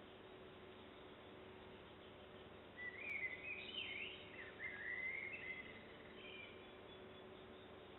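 A songbird singing a run of short, sweeping whistled phrases, starting about three seconds in and stopping a few seconds later, over a faint steady hum.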